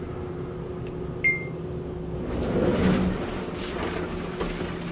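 Schindler passenger elevator arriving at a floor: a single high chime about a second in over the car's steady hum, then the doors sliding open with a rush of noise.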